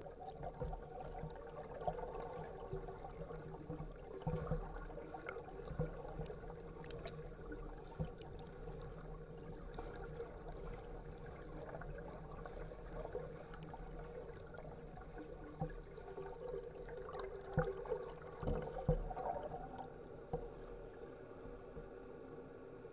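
Muffled underwater pool sound: a steady low hum under soft swishing and bubbling from a swimmer's underwater arm strokes, with a few small clicks. The swishing grows a little louder about two-thirds of the way through.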